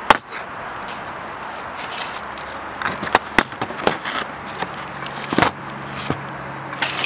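A person crawling under a chain-link gate across gravel, dry leaves and railroad ties: crunching and scraping with several sharp knocks, the loudest right at the start.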